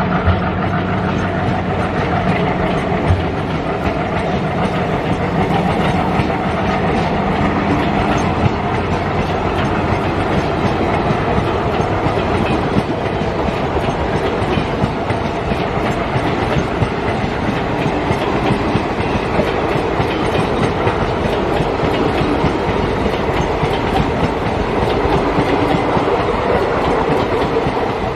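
Train passing by, its wheels clacking steadily over the rail joints, with a low hum that fades in the first few seconds.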